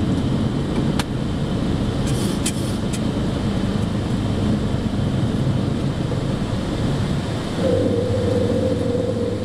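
Light aircraft's engine noise heard in the cockpit at takeoff power through lift-off and the initial climb, a steady dense drone. A few faint clicks come in the first seconds, and a steady whine joins near the end.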